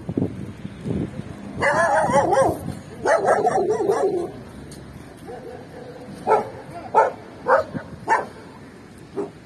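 Dogs vocalising: two drawn-out, wavering calls in the first half, then a run of five short barks, roughly one every two-thirds of a second.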